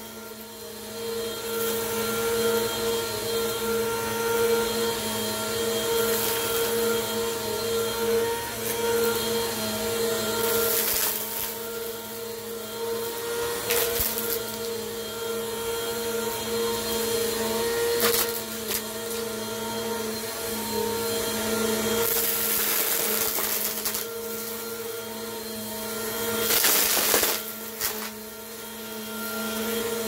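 Bissell PowerForce Compact upright vacuum cleaner running with a steady motor hum. Several short crunching rattles a few seconds apart as hard bits and crumbly debris are sucked up off the carpet.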